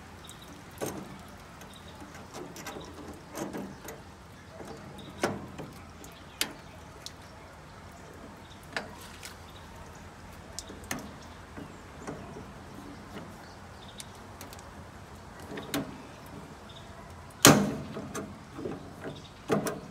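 Hand pop-rivet gun being squeezed on a steel rivet in a grill's burner bracket, giving scattered metal clicks and clacks. Near the end comes one loud sharp crack, the rivet's mandrel snapping off as the rivet sets.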